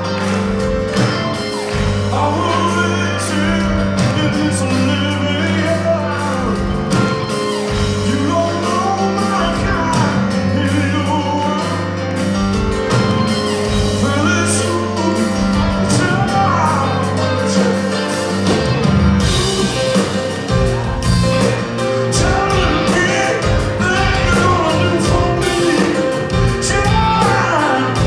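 Live rock band playing a song: grand piano, electric bass, drums and electric guitars, with singing, heard from the audience in a large concert hall.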